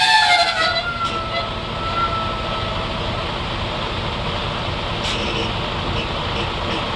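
Semi-truck tractor: a sharp air hiss at the start carrying a whistling tone that falls in pitch and fades over about three seconds, then the truck running steadily as it eases back a little to slide the released fifth wheel.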